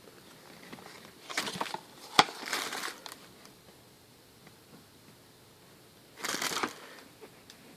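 Handling noise: three short crinkling rustles, with one sharp click just after two seconds in.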